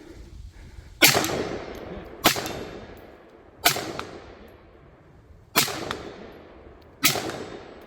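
Five rifle shots, fired deliberately about one and a half to two seconds apart at a set of steel and paper targets, each with a long fading echo.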